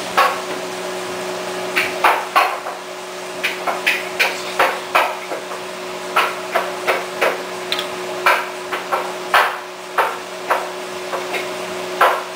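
A metal spoon clinking and knocking against metal cooking pots while luchi are turned in hot oil: irregular sharp knocks, one or two a second, some in quick pairs. A steady low hum runs underneath.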